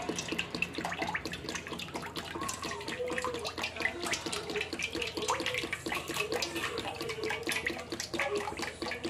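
Cooking oil being poured from a plastic bottle into a metal pan: a continuous pouring splash with irregular glugging as air gulps back into the bottle.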